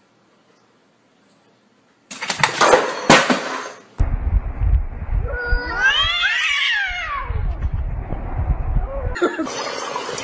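Cats in a standoff caterwauling: one long yowl that rises and then falls in pitch, over a low rumble. It is preceded by a short burst of noisy clatter after a near-silent start.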